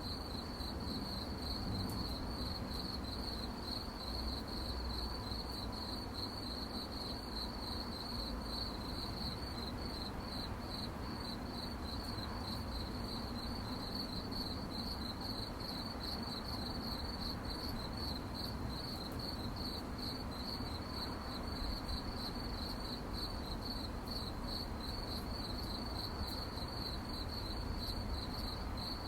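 Crickets chirping at night: a dense, continuous high-pitched trill of many rapid pulses, steady throughout, over a faint low rumble.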